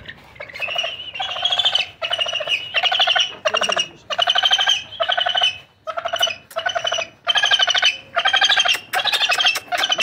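A vulture calling in a steady series of harsh, rasping calls, about a dozen in a row at roughly one a second, each under a second long. It calls while being handled and lifted, and quiets once it is calmed.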